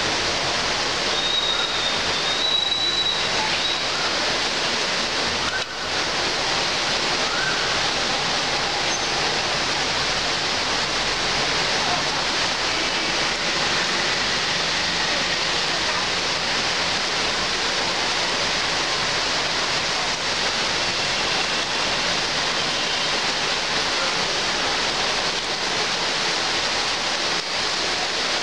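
Heavy rain pouring steadily on trees and foliage, a dense, even hiss, with a faint high tone briefly near the start.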